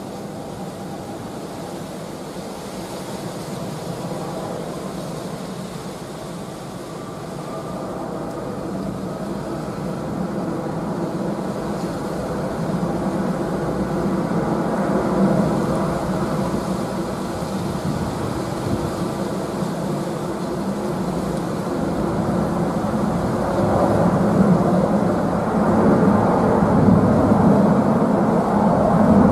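Jet engines of an Airbus A330-300, Rolls-Royce Trent 700 turbofans, spooling up as the airliner starts its takeoff roll. It is a steady rumble with a whine that grows louder throughout.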